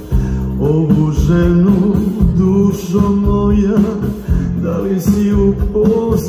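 Live band music with a male singer, backed by violins, accordion and guitars.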